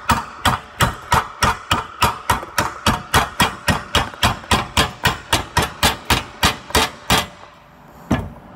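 Hammer blows driving a control arm bushing into a 2005 Subaru Outback's control arm through a metal cup, each blow ringing, about three and a half a second. They stop about seven seconds in, followed by one last blow.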